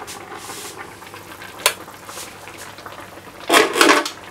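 Sukiyaki simmering in a covered pan, a steady bubbling hiss of the vegetables cooking in their own juices and the warishita. A sharp click about 1.7 seconds in, and a louder clatter near the end as the lid is lifted off the pan.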